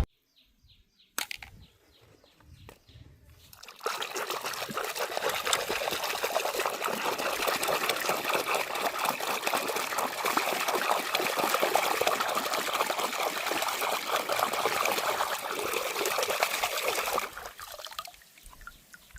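Water running in a steady stream, starting about four seconds in and stopping shortly before the end, after a single click about a second in.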